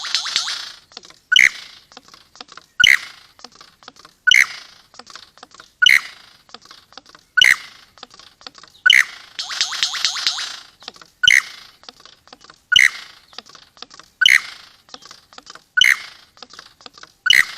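A bird calling: a sharp, high call repeated about every one and a half seconds, with bursts of rapid chattering near the start, in the middle and near the end.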